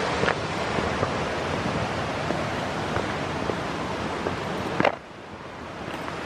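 Steady rushing of a small creek waterfall. A single sharp knock comes near the end, after which the rush is suddenly quieter.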